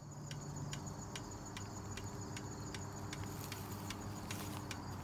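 Insects chirping in woodland: a steady train of sharp chirps, about two or three a second, over a thin high steady buzz, with a low steady hum underneath.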